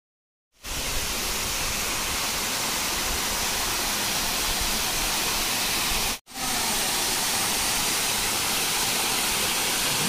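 Steady rush of a waterfall, water cascading over rock ledges into a pool. It starts about half a second in and is cut off for an instant by an edit just after six seconds.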